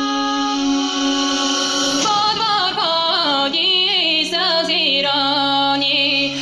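Electronic dance music: sustained synth chords, with a wordless high voice line gliding up and down over them through the middle part.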